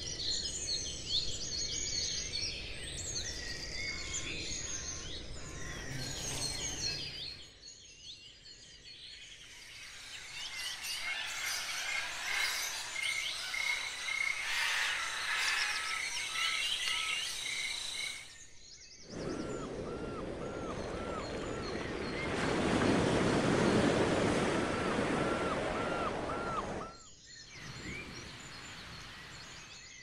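Forest ambience with many birds singing and chirping, changing abruptly a few times. Past the middle, a louder steady rushing noise comes in, with one bird repeating a short chirp over it, then drops away near the end.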